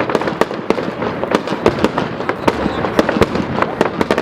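Fireworks display: a rapid, irregular string of aerial shell bangs and crackles, several a second, with no let-up.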